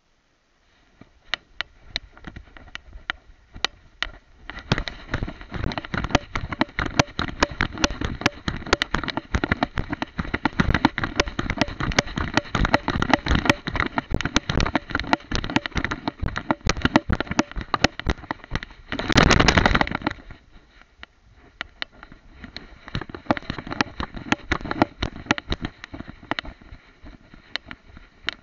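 Dense crackling and scraping from a camera strapped to a dog's head, rubbing against the dog's fur and the grass as it moves about. A louder rasp lasting about a second comes near two-thirds of the way through.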